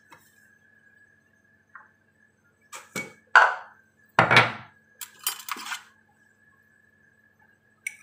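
Kitchen dishes and utensils being handled: a few sharp knocks and clinks, bunched between about three and six seconds in, as spice containers are fetched.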